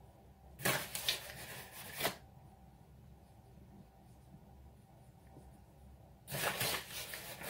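Two rustling, scraping bursts of handling noise, each about a second and a half long, one near the start and one near the end, as pastry lids are pressed and worked onto tarts in a metal tart tin.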